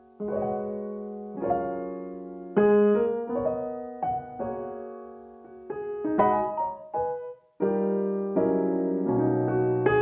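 Background piano music: chords and single notes struck every second or so and left to ring.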